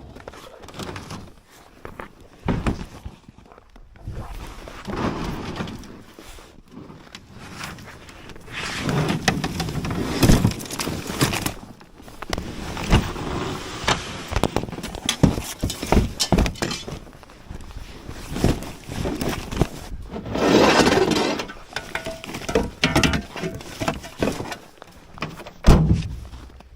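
Irregular knocks, crunches and scraping of ice and snow being broken and handled, with a longer run of crunching about twenty seconds in.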